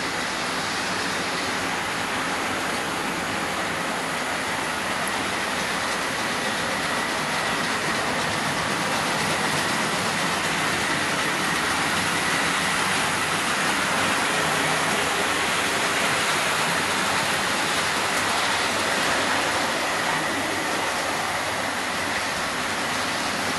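Several OO gauge model trains running at once: a steady whirr of their small electric motors and wheels rolling on the track, with a faint high whine, growing a little louder midway.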